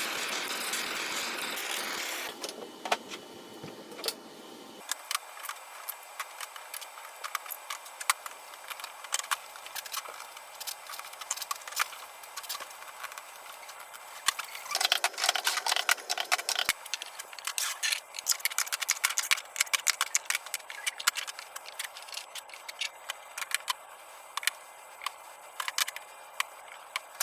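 Irregular sharp clicks and light rattling, with a denser stretch of noisy rattling near the start and again about halfway through.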